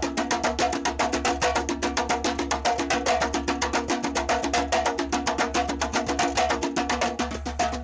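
Brazilian timbal (timbau) hand drum played in a fast, even stream of sharp strokes, about eight a second, with steady sustained tones underneath.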